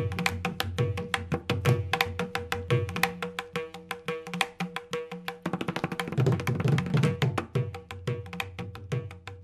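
Background music made of fast, sharp percussion strokes, several a second, over a steady held tone.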